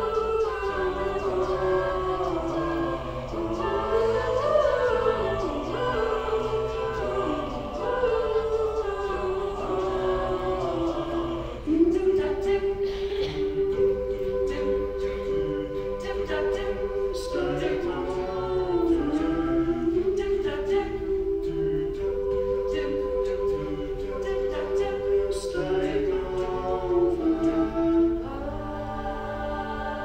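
Mixed-voice a cappella group singing, with one voice holding long melody notes over sustained chords from the others. About twelve seconds in, sharp rhythmic clicks join the voices; near the end the singing gets quieter.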